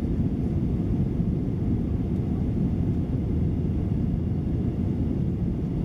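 Steady low rumble inside a Boeing 737-900ER's cabin in flight: engine and airflow noise, unchanging throughout.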